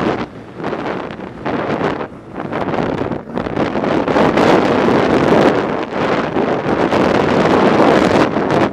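Wind rushing and buffeting over the camera microphone of a BMW R 1200 GS Adventure riding a gravel track, with the motorcycle running mixed into it. The noise surges and dips, with brief drops in the first three seconds, and is loudest in the second half.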